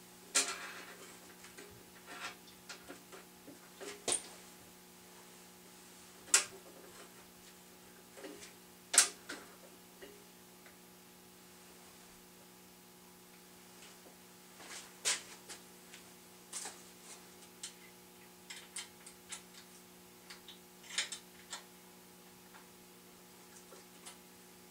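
Scattered light clicks and knocks of metal parts being handled as a drill press head is seated on its column and locked down with a hex key and set screws, over a steady low hum.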